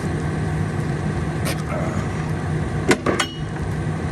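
A farm vehicle's diesel engine running at a steady speed, with a few sharp clicks or knocks, the loudest pair about three seconds in.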